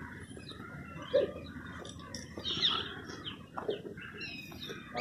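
Chickens clucking, with short high chirps that fall in pitch a few times and a brief lower call about a second in.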